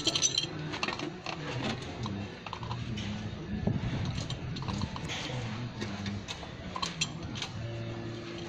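Scattered light metallic clicks and taps of pliers working the brass fittings on a water meter, over a low background hum.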